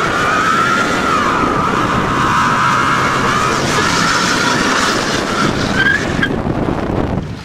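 1989 Chevy 3/4-ton van doing a burnout: the rear tyres squeal in one long wavering screech over the running engine, and the screech stops about six seconds in.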